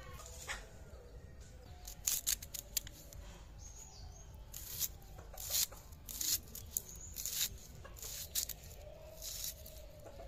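Red onion being peeled by hand and cut against a bonti blade: a string of short, crisp tearing and cutting sounds at an irregular pace, as the papery skin is stripped off and the flesh is sliced.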